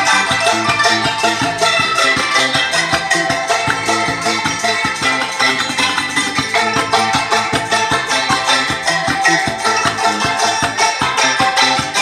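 Modern song played on traditional Thai instruments: wooden xylophones struck with mallets in quick, even notes, with a long-necked plucked lute and a steady beat.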